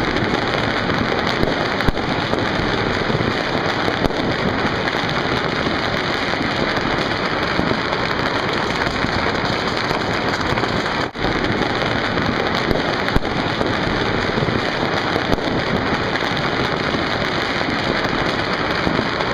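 Dense, unbroken crackle of countless firecrackers and fireworks going off across a city, merging into one steady wash of noise with a few louder bangs standing out. The sound drops out for a moment about eleven seconds in.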